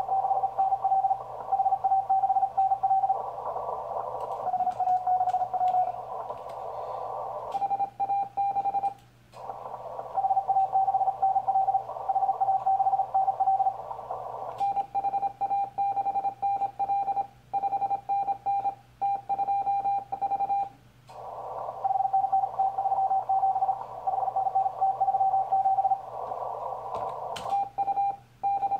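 Morse code on the 40 m band from a Yaesu FT-1000MP transceiver: a single steady-pitched tone keyed on and off in dots and dashes. Some stretches sit in a narrow band of receiver hiss, and others are clean with no hiss. Computer keyboard clicks come in between.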